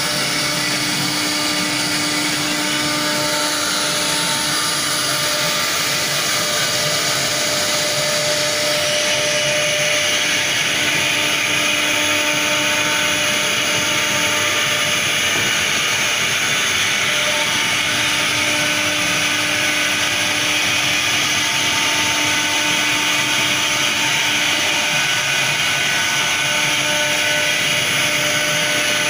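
CNC router spindle running steadily while its bit carves a 70 mm thick wooden door panel: a constant mechanical whine over the hiss of wood being cut.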